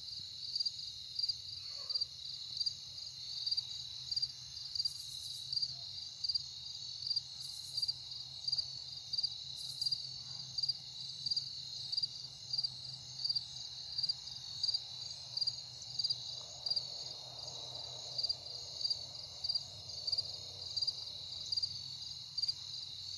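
Crickets chirping in a steady rhythm, about two chirps a second, over a steady high insect trill.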